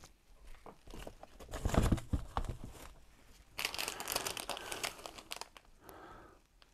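Brown paper bag rustling and crinkling as hands rummage in it and pull out a small paper packet, with a few soft thumps about two seconds in and the busiest rustling a little after halfway.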